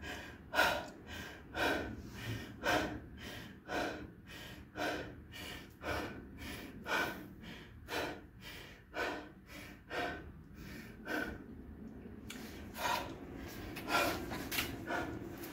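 A man panting hard, out of breath from ab exercises: quick, sharp breaths about two a second, with a short pause a little before the end and a few more breaths after it.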